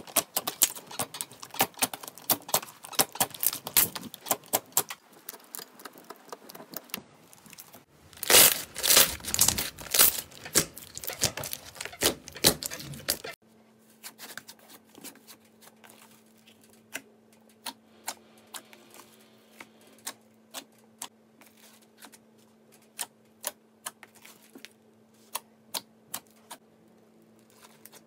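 Hands poking and kneading slime: a rapid run of small sticky clicks and pops, with louder squelching from about eight to thirteen seconds in. After a sudden change, softer, sparser clicks come as hands press a thicker slime, over a faint steady hum.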